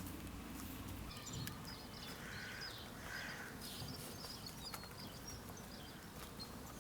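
Quiet rural outdoor ambience with faint, scattered high chirps of small birds and a few soft low thuds.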